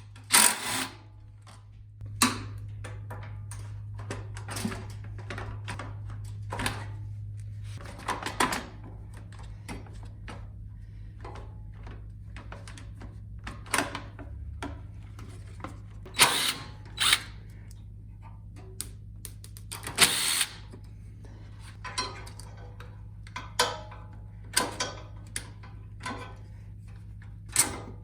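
Hand tools and metal parts clicking, knocking and clinking at irregular intervals as a snowblower's shroud and gas tank are unbolted and taken off, over a steady low hum.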